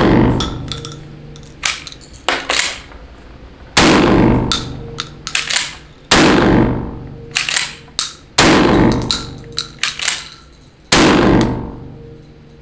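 Four 12-gauge shotgun shots from a MAC M1014 gas-operated semi-auto, about two and a half seconds apart, each ringing out in an indoor range, with sharp metallic clacks of the action between shots. The gun is not fully cycling the standard low-brass target loads, which the shooters put down to too little gas.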